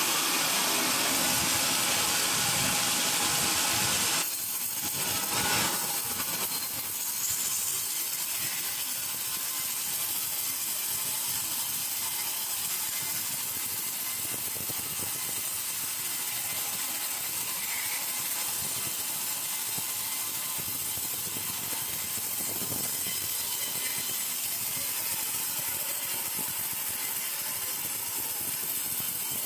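Sawmill machinery running steadily, a high hissing mechanical noise that eases off a little about four seconds in.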